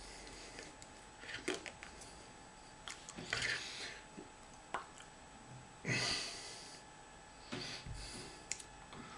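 Short breath puffs and small mouth noises from a person signing, about four in all, with a few sharp clicks of hands touching and soft rustling of clothing.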